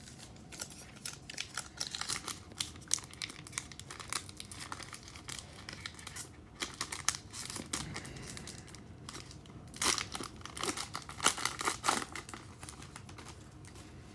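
Foil wrapper of a Panini Revolution basketball card pack crinkling and tearing as it is opened by hand, with the loudest bursts of crinkling about ten to twelve seconds in.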